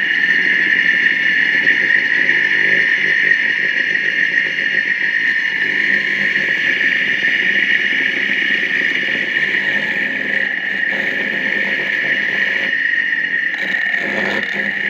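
Electric cooling fan motor running steadily with a high whine after being switched on.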